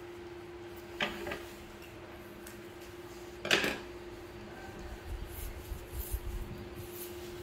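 Light knocks and clatter of a plate and fruit on a plastic tabletop as a baby monkey handles its food: two small knocks about a second in, a louder one midway, and a run of small ticks and thuds near the end, over a steady hum.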